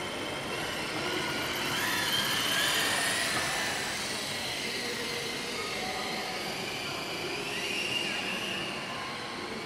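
Twin small electric motors and propellers of a lightweight RC Dash 8 Q300 model whirring at takeoff power. The whine rises in pitch in the first few seconds as it throttles up and takes off, then holds steadier as it flies.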